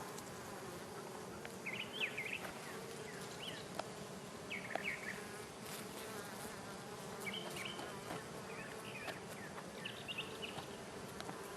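Honey bees buzzing steadily around an opened hive, a continuous drone. Short high chirps come through several times.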